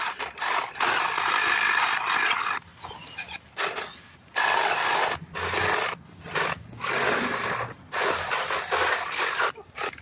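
Small chainsaw cutting through brush and branches in repeated bursts, each a second or two long, with short pauses between cuts.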